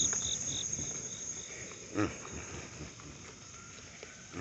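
Insects chirping: a steady high buzz with a run of short chirps, about three a second, that fades out in the first second and a half. A man hums a short 'mm' about two seconds in.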